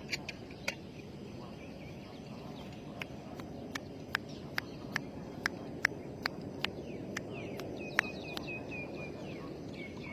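Quiet outdoor background with a run of sharp ticks, about two or three a second, through the middle. Faint high chirps from a small bird come near the end.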